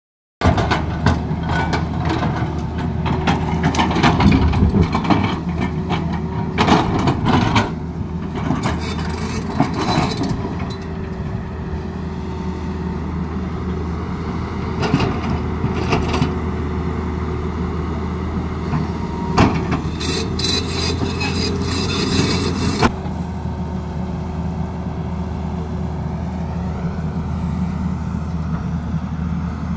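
Tata Hitachi crawler excavator's diesel engine running steadily under load while the bucket digs into a rocky slope, with repeated crashes and scrapes of rock and earth. The crashing is thickest in the first ten seconds and comes again in bursts in the middle, with only the engine near the end.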